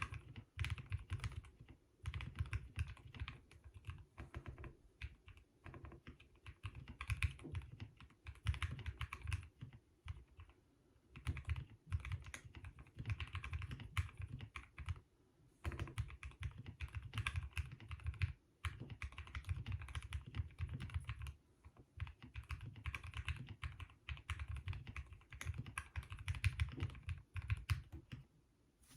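Typing on a custom mechanical keyboard with Turquoise Tealio linear switches lubed with Krytox 205g0, on an aluminium plate with foam in the case. Fast runs of keystrokes with a deep thock, broken by short pauses.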